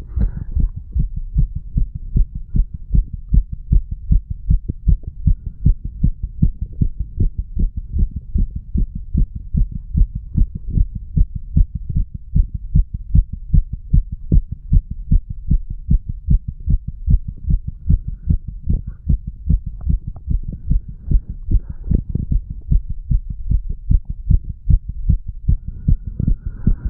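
A human heartbeat, recorded close up: a steady, regular run of low, dull thumps. It is the heart of a 35-year-old man under the influence of medical marijuana and tobacco.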